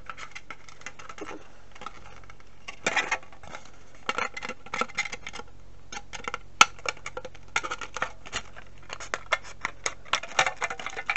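Scissors snipping through the thin plastic tray of a DIY candy kit: an irregular run of crisp snips and crackles of the stiff plastic, with one sharp click about six and a half seconds in.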